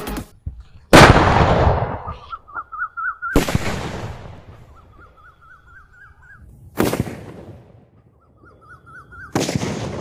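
Large firecrackers exploding: four sharp blasts, each dying away over about a second.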